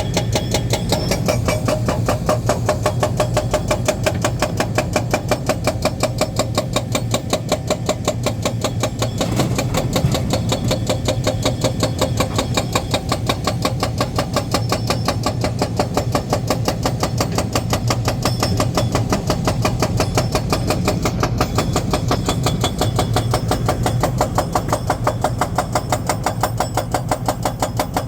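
Heavy construction-machine diesel engine running steadily, with an even, rapid pulsing beat of about four to five a second.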